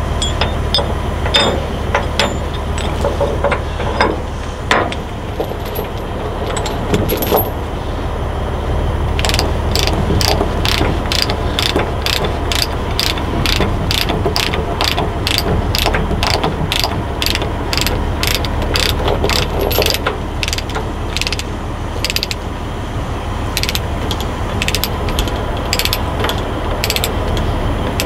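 Ratchet chain binder being worked to tighten a tie-down chain on the load. Scattered metal clinks at first, then from about a third of the way in steady ratchet clicks at about two a second, over a steady low hum.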